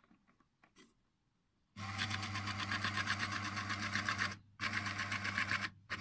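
Raymarine ST1000/ST2000 tillerpilot's electric motor and gearbox whirring steadily as they drive the ram, starting about two seconds in and stopping briefly twice. Before that there are a few faint clicks.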